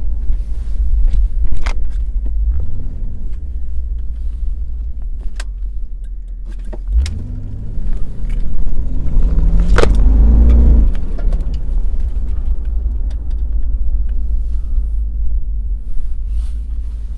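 Buick Roadmaster's LT1 V8 running under way with a steady low rumble. About seven seconds in it accelerates, its note rising for about three seconds before settling back. Light clicks and rattles are scattered throughout, with one sharp knock near the peak of the acceleration.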